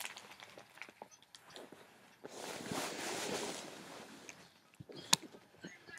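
A Great Pyrenees mix dog chewing and tearing at a wrapped present, with small scattered crinkles and then a couple of seconds of dense rustling of wrapping paper and plastic packaging. A sharp click comes about five seconds in.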